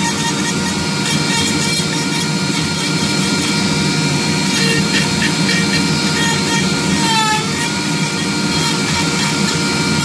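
Dremel rotary tool running at high speed with a carbide carving burr grinding into wood, a steady motor whine over a rough grinding noise. About seven seconds in the whine briefly dips in pitch as the burr bears into the wood.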